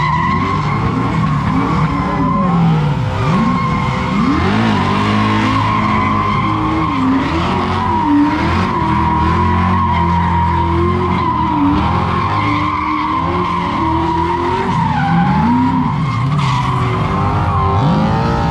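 A car doing a burnout: its spinning tyres squeal in one steady high note while the engine revs rise and fall over and over.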